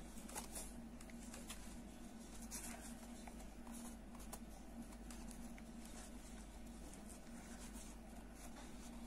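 Faint rustling and scattered light clicks of a crochet hook and cord being worked through the holes along a wooden bag side, over a steady low hum.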